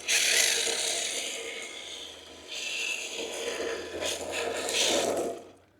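Kyosho Fazer MK2 electric RC drift car's drift tires sliding and skittering over a pebbly path, a gritty scraping hiss that comes in two long surges with a brief dip between, then fades out near the end.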